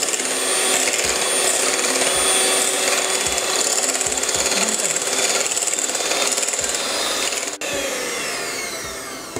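Electric hand mixer running at low speed, its beaters whipping chilled fresh cream in a glass bowl with a steady whir. It breaks off for an instant about seven and a half seconds in, then runs on more quietly and fades near the end.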